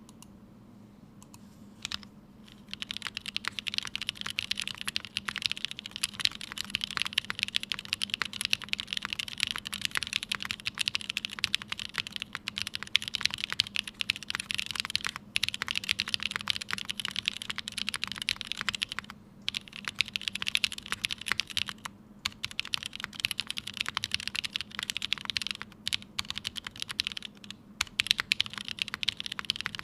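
Continuous typing on a Tomo mechanical keyboard with lubed and filmed Cherry MX Black linear switches on Kailh stems, in an O-ring-mounted aluminium plate, with GMK Serika keycaps. A single click comes about two seconds in, steady typing starts just after, and it pauses briefly a few times.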